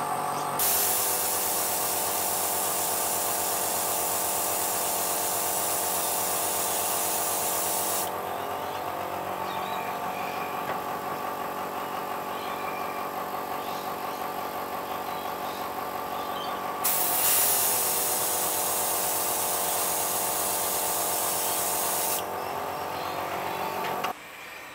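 Iwata airbrush compressor running with a steady hum while an airbrush sprays silver paint through fly-screen mesh in two long hissing bursts, about seven and five seconds long. The compressor's hum shifts slightly in pitch as each burst starts and stops, and the compressor shuts off near the end.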